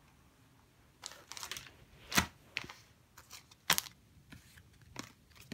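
Fishing tackle packaging being handled and set down on carpet: plastic packs and small lure boxes crinkling, with a few sharp clicks and taps, the clearest about two, three and a half, and five seconds in.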